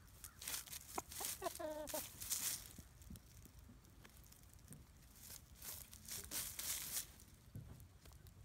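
A rooster scratching and pecking in dry leaf litter: crackling, crunching rustles of dry leaves in two spells, with a short wavering call about a second in.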